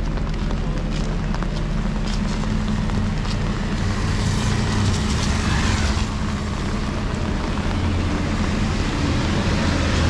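Road traffic on a wet road: a steady engine hum under the hiss of tyres on wet tarmac, swelling as a motorcycle passes about halfway through, and a heavier engine growing louder near the end as a truck approaches.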